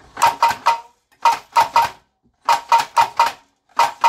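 A 1950s Marx Pom Pom anti-aircraft cannon toy being turned by hand, firing off loud bursts of three or four rapid, sharp clacks, each clack ringing briefly, with short pauses between the bursts.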